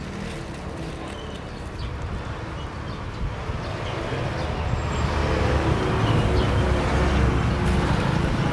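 Street traffic: a motor vehicle's engine rumble growing steadily louder as it approaches.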